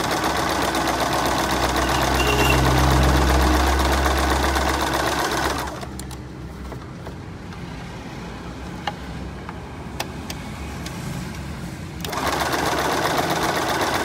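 Electric Norio sewing machine stitching through fabric with a steady, rapid running noise. About six seconds in it stops. During the quieter pause there are two light clicks, and it starts sewing again near the end.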